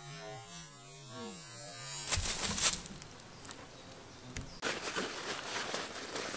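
Belgian Malinois giving a low, moaning grumble whose pitch wavers up and down for about two seconds. It is followed by rustling and handling noise, which grows louder after a sudden change about four and a half seconds in.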